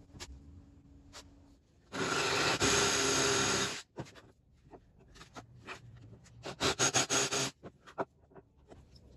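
Cordless drill with a large wood-boring bit running into a wooden board: one continuous run of about two seconds, then a quick series of short bursts a few seconds later.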